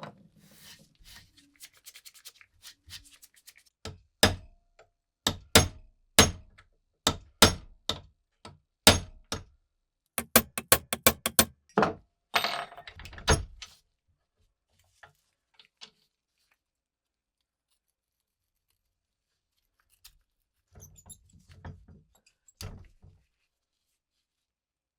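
A string of sharp, loud knocks under a second apart, then a quick run of faster taps and a short scrape, with a few softer knocks near the end.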